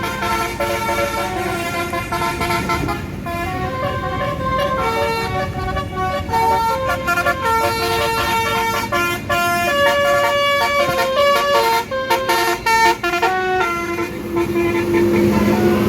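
Basuri musical air horn on a tour bus playing a 'telolet' tune: a chord of horn tones stepping quickly from note to note, with a few short breaks near the end.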